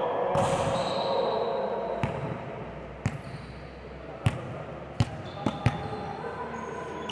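Volleyballs being hit and bouncing on a gym floor: about six sharp, irregularly spaced smacks in the second half, over a background of voices and noise that fades over the first few seconds.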